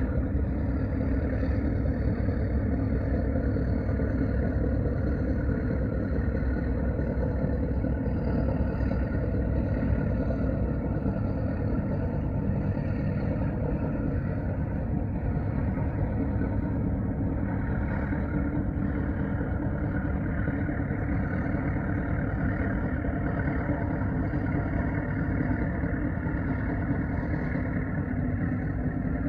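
River cargo ship's engine running steadily, a constant low rumble and hum that does not change.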